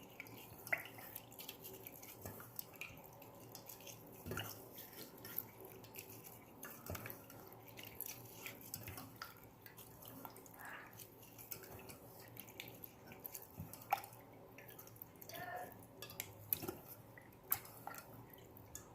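Faint, irregular drips and small splashes of liquid as boiled saga leaves are squeezed out by hand, with a few sharper drips now and then.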